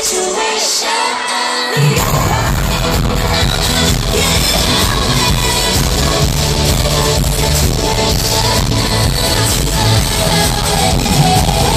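Live pop concert music from an arena sound system, recorded from the audience: a girl group singing over a dance track. The bass and full beat come in about two seconds in.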